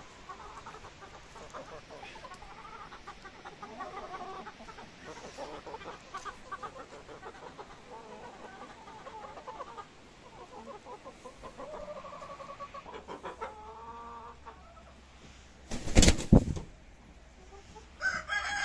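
A flock of hens clucking continually as they crowd around, with a few loud knocks about sixteen seconds in and louder calls near the end.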